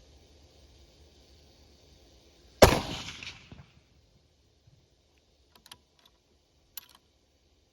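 A single shot from a custom 6.5 Creedmoor Savage Axis II rifle fitted with a muzzle brake, about two and a half seconds in, its report dying away over about a second. A few faint clicks follow.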